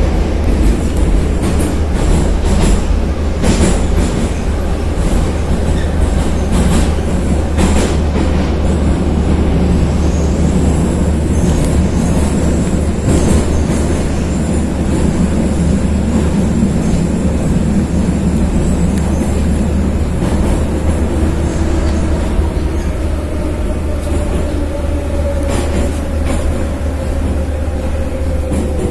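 Kyiv metro car running through the tunnel, heard from inside the car: a loud, steady rumble of wheels on rail and running gear, with a faint high wheel squeal and a few short clicks. Near the end the motor whine falls in pitch and the rumble eases as the train slows.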